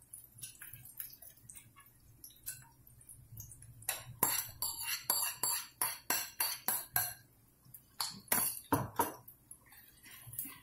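Clinking of a utensil against a glass bowl as raw chicken pieces are tapped and scraped out into a pan: a quick run of clinks, about three or four a second, for some three seconds, then a few heavier knocks a second later.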